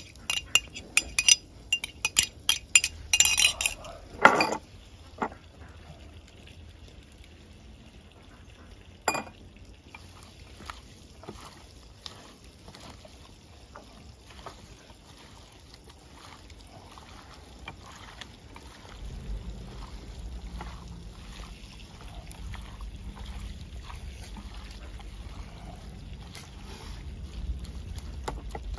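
Dishes and utensils clinking rapidly for the first four seconds, ending in a heavier knock, then scattered light clicks of handling. A low steady rumble comes in about two thirds of the way through.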